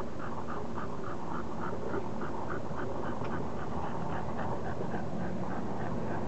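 English bulldog panting rapidly, about four breaths a second, over a steady low hum.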